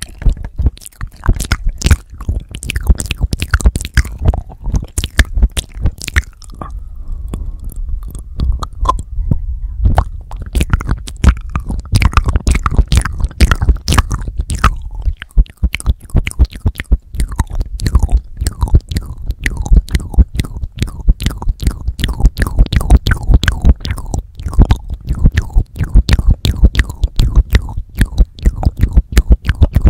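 Close-up wet mouth sounds: lips and tongue licking and smacking directly on a handheld recorder's microphones, giving a dense, irregular stream of wet clicks and pops with low thuds from contact with the mic. The clicks thin out for a few seconds about a quarter of the way in, then grow dense and loud again.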